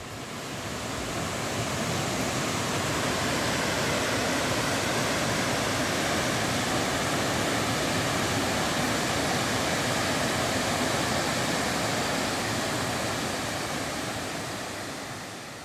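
Waterfall with water falling and splashing steadily, a constant rush that fades in over the first couple of seconds and fades out near the end.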